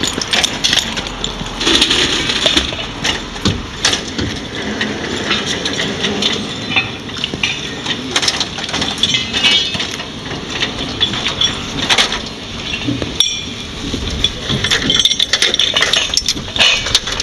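Metal fire-brigade ladder clanking and knocking as it is slid down off a fire engine's roof and handled, many sharp metallic knocks and clinks scattered throughout.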